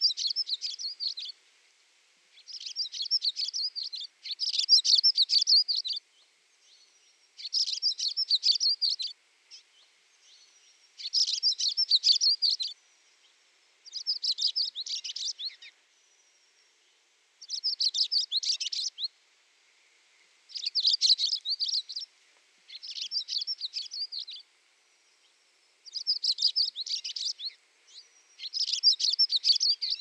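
Songbird singing: about a dozen short phrases of rapid, high-pitched notes, each lasting one to two seconds, with brief pauses between them.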